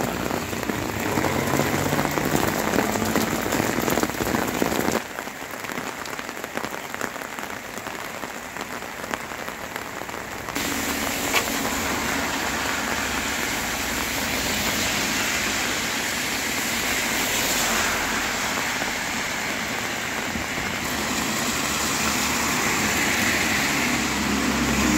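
Steady rain falling on surfaces, a continuous hiss that drops in level abruptly about five seconds in and comes back stronger about ten seconds in. A low rumble runs under parts of it.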